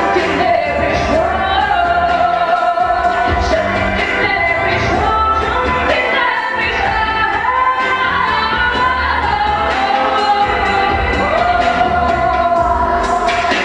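A woman singing a slow song into a microphone over instrumental band backing, holding long sustained notes.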